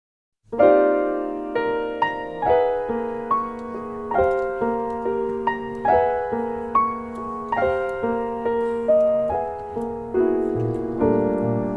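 Background music: a slow solo piano introduction, its chords and notes struck one after another and left to ring. It begins about half a second in, out of silence.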